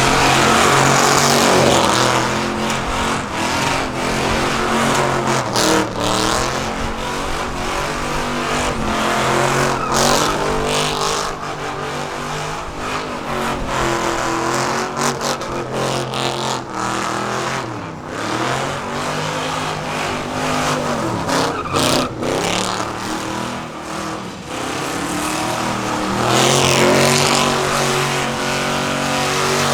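Car engine held at high revs during a burnout, with the rear tyres spinning and squealing. The revs sag and climb back several times in the second half.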